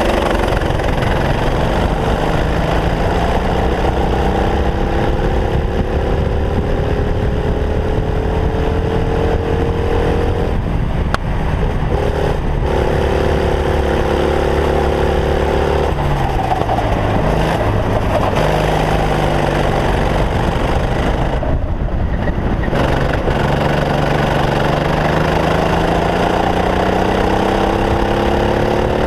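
Racing kart engine heard from the driver's seat at speed: its pitch climbs steadily as the kart accelerates, cuts off briefly when the driver lifts, holds, then drops away into a corner before climbing again.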